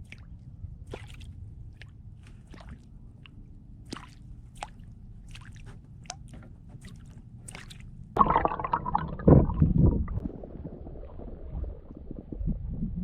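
Water heard through a submerged camera: a low rumble with scattered faint clicks, then about eight seconds in a sudden loud splashing, gurgling rush of water that settles over a few seconds.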